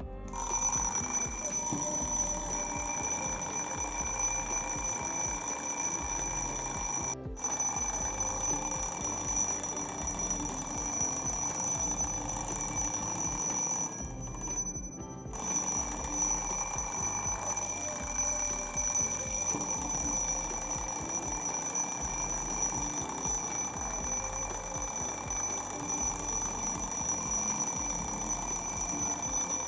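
Twin-bell alarm clock ringing continuously, its hammer striking the two metal bells rapidly. The ringing starts just after the beginning, breaks off for a moment about seven seconds in and for about a second around fourteen seconds, then rings on.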